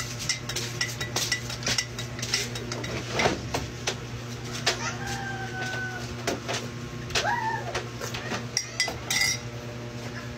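Metal spoon clinking against a glass coffee mug as it is stirred, with scattered clatter of dishes and utensils and a steady low hum. Two short pitched calls sound around the middle.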